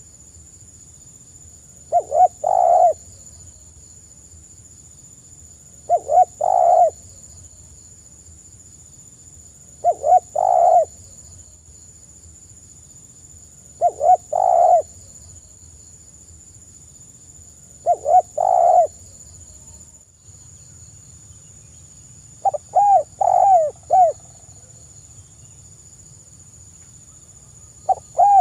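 Spotted dove (tekukur) cooing softly: five regular phrases about four seconds apart, each two short notes followed by a longer coo, then a longer phrase of several bending notes, with another beginning near the end.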